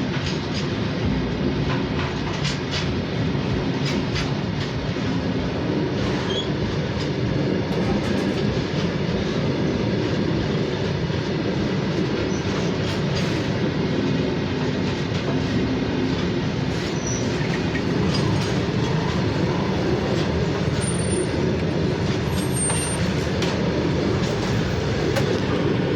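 Long freight train rolling past: a steady rumble of steel wheels on rail, with scattered clicks as wheels pass over rail joints.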